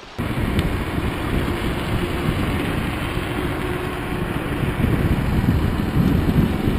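Wind rushing over a bicycle-mounted camera's microphone while riding along a paved road: a steady low rumble that grows gustier and stronger near the end.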